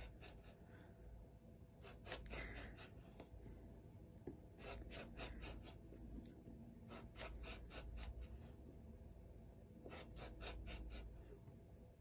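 Rotary cutter blade rolling through leather onto a cutting mat, a faint rasping in several short bursts of quick strokes as thin strips are cut. Leather is a little harder to cut with the rotary cutter.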